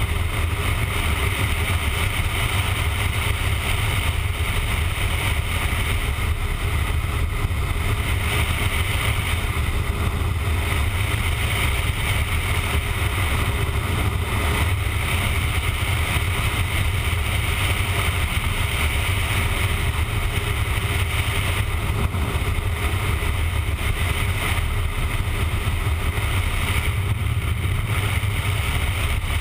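Motorcycle cruising at a steady highway speed. Heavy, steady wind rumble on the microphone covers the engine running underneath.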